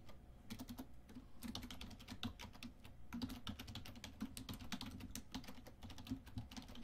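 Typing on a computer keyboard: a run of quick, irregular keystrokes.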